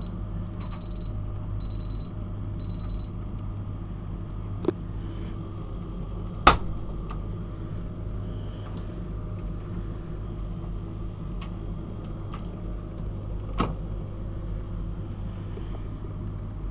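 Miele W 5873 washing machine's end-of-programme signal beeping three times at a high pitch over a steady low hum from a heat pump dryer running. About six and a half seconds in comes a sharp click, the porthole door being unlatched, with smaller clicks and knocks around it.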